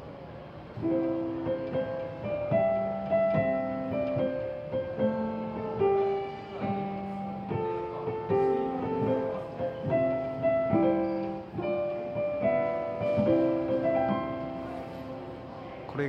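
Digital grand piano playing a Japanese railway train chime melody, imitating an onboard music-box chime in its low-pitched version at that music box's speed. Single notes and chords start about a second in and run as a moderate-paced melody.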